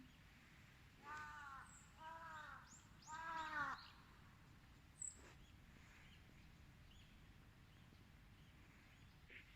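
A crow cawing three times, about a second apart, each caw about half a second long and the third the loudest.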